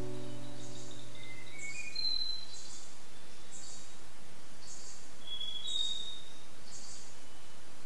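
Natural outdoor ambience with birds: a high chirp repeating about once a second over a steady hiss, and short rising whistled notes twice. The guitar music fades out at the very start.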